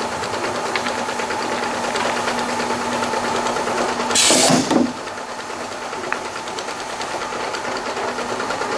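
Jar inspection line's slat conveyor running with a steady hum and fine ticking. About four seconds in comes a short loud hiss of compressed air: the pneumatic reject cylinder firing to push a jar off the conveyor into the reject tray.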